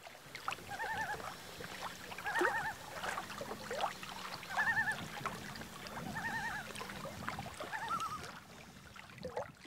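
An animal calling five times, each a short wavering call, one every one and a half to two seconds, over faint clicks and a low steady hum.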